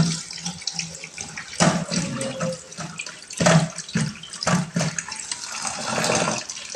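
Water running from a tap and splashing as a handful of kenanga (ylang-ylang) flowers are rinsed under it.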